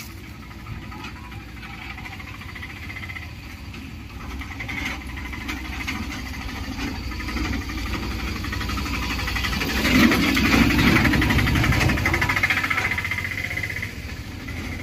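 A motor vehicle's engine running close by, growing louder to a peak about ten seconds in and then fading, as a vehicle passing near.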